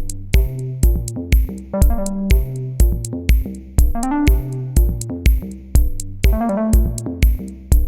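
Electronic background music: a drum-machine beat with kick and hi-hat at a steady tempo under synthesizer chords and short melodic runs.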